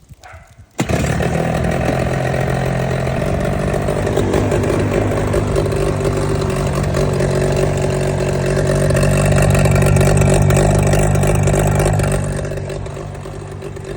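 Brand-new Hangkai 12 hp two-stroke outboard motor on its first start. It catches abruptly about a second in and runs steadily, swells a little louder later on, then eases off near the end.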